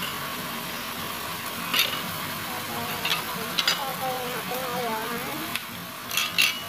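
Chicken pieces and chopped onion sizzling steadily in a pot, with a few sharp knocks and clicks of a wooden spoon against the pot.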